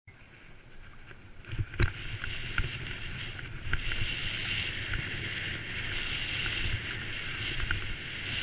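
Mountain bike ridden over a rough dirt trail, heard from a camera on the bike: steady wind noise on the microphone with the rumble and rattle of tyres and frame over bumps. Scattered sharp knocks from the bike hitting ruts and stones, the loudest about two seconds in.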